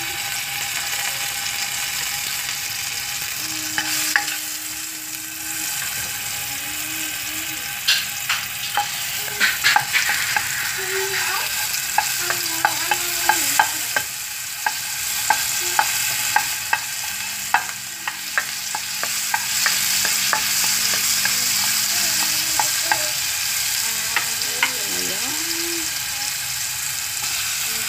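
Butter sizzling as it melts in a hot nonstick wok, a steady frying hiss. A spatula stirs it, tapping and scraping the pan with many sharp clicks through the middle of the stretch.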